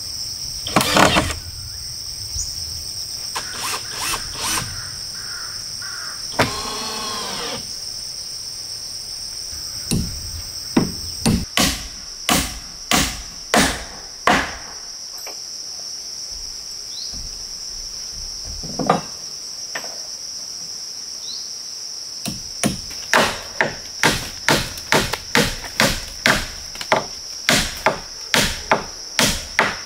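A hand tool striking wood, with a steady high insect drone under it. The blows are scattered at first, then from about two-thirds through they settle into a steady rhythm of about one and a half a second.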